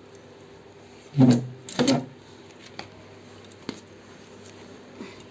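Wooden chairs and table being handled while wiped down with a cloth: two loud knocks close together about a second in, then a light click, over a faint steady hum.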